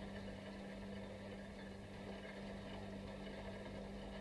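Steady low hum with a constant hiss behind it, unchanging throughout.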